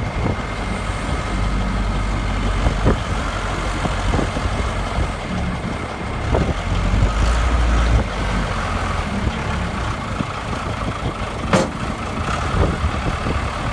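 Case backhoe loader's diesel engine running steadily, with scattered knocks and one sharper knock near the end.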